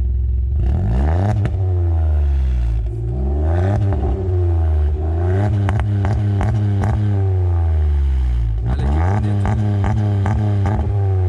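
Ford Ka 1.5 three-cylinder engine revved in neutral about four times through an aftermarket JK universal muffler, the exhaust note climbing and falling back each time. At the top of some revs there are brief crackling ticks, typical of the automatic's rev cut in neutral.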